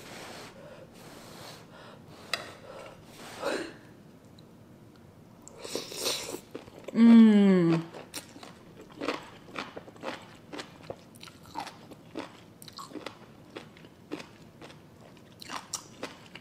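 Close-up eating sounds of Samyang instant noodles. The noodles are slurped in about six seconds in, followed by a loud hummed "mmm" that falls in pitch. Then comes steady chewing with many small wet mouth clicks.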